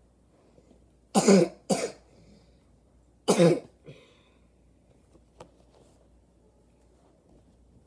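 A person coughing three times: two quick coughs about a second in, then one more about two seconds later.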